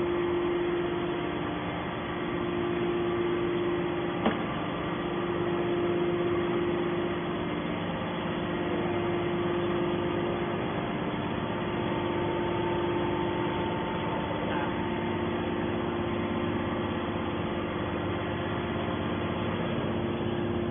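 Hydraulic metal baler running: its motor and hydraulic pump give a steady hum with a few fixed tones, and there is one sharp click about four seconds in.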